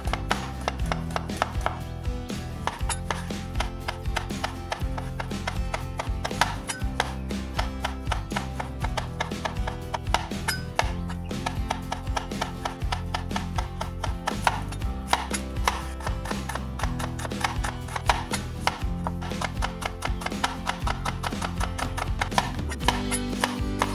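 Broad-bladed kitchen knife chopping cucumber, tomato and red onion on a bamboo cutting board: quick, repeated strikes of the blade through the vegetables onto the board.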